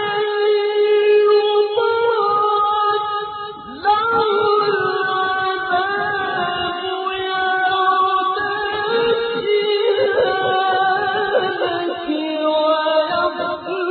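A single reciter's voice chanting the Quran in slow, melodic tajweed style, drawing verses out into long held, ornamented notes. There is a short break for breath about four seconds in before the chant resumes.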